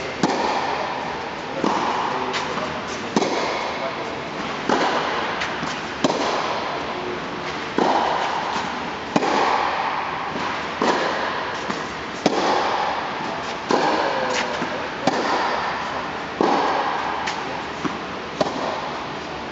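Tennis rally: rackets strike the ball with a sharp pop about every second and a half, each hit ringing on in the reverberant indoor tennis dome.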